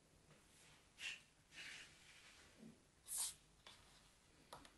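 Faint swishes and soft crunches of kinetic sand being pressed and scraped into a small plastic mold by fingers, the loudest about three seconds in, with a couple of light clicks near the end.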